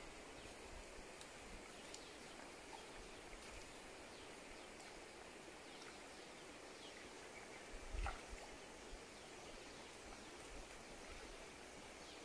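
Faint forest-stream ambience: a steady hiss of running water with faint, scattered bird chirps, and one soft thump about eight seconds in.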